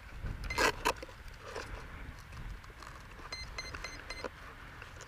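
Two sharp clicks from handling the foam RC plane's fuselage and battery hatch, then about three seconds in a run of short, high electronic beeps from the plane's electronics powering up on the freshly connected LiPo battery: the expected start-up beeps.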